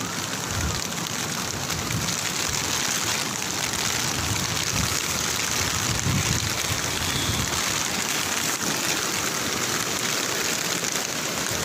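Heavy rain falling, a steady dense hiss, with a few low rumbles now and then.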